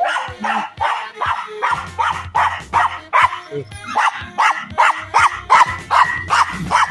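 Dog barking over and over in quick, even succession, about two to three barks a second, over background music.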